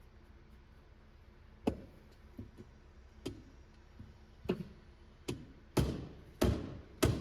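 Hammer striking the capped air-side shaft of a Fox 40 downhill fork to knock it free of the lower leg: about ten sharp knocks, coming harder and closer together in the second half. The shaft is stuck solid in the lowers.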